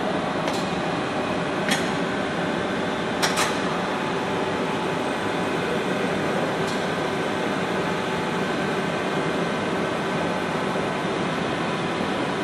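Webster & Bennett EM 72-inch vertical borer running with its table turning under its 40 hp electric drive: a steady machine noise of motor and gearing with a few faint steady tones. A handful of light clicks come in the first few seconds, with one more about seven seconds in.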